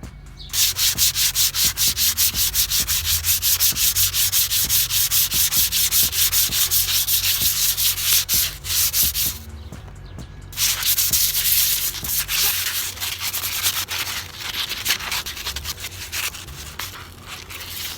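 Rusty steel scooter exhaust pipe being scrubbed by hand with an abrasive to take off the rust, in fast back-and-forth strokes of about four a second. The strokes pause briefly about halfway through, then resume and grow softer near the end.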